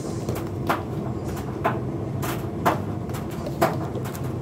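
A steady low hum with about five short, sharp knocks at uneven intervals, the last two the loudest.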